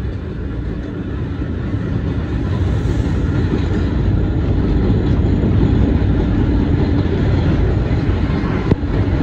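Vintage New York City subway train running along the track, heard from aboard the car: a steady rumble of wheels on rail that grows gradually louder, with a single sharp click near the end.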